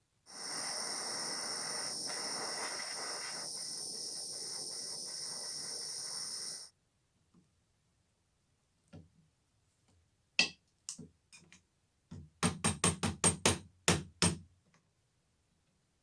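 A steady hiss for about six seconds. Then sharp metal taps: a few single knocks, followed by a quick run of about eight, as a hammer drives a punch against the brass buckle held in a vise.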